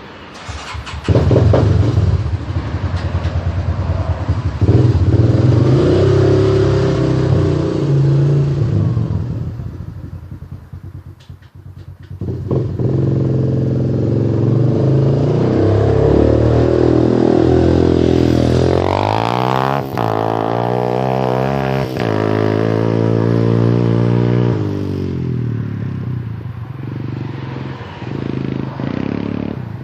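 ATV engine running through a Two Brothers aftermarket exhaust: it opens up about a second in, eases off around ten seconds, then pulls hard again, its pitch rising and falling around twenty seconds before settling lower near the end.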